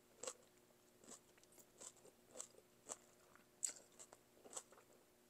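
Faint close-up eating sounds: short wet mouth clicks and smacks of someone chewing bun bo hue noodles, about two a second.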